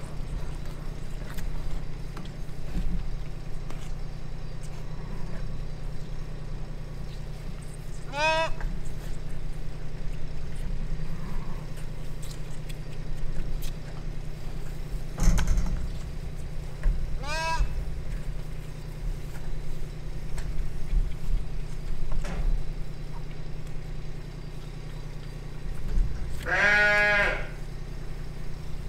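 Lambs bleating, three separate calls with the last the longest and loudest, over a steady low hum, with a single knock about halfway through.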